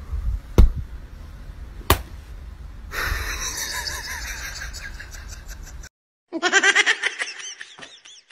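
A person laughing in quick repeated bursts that start about six seconds in and trail off, after two sharp taps in the first two seconds and a stretch of muffled rustling.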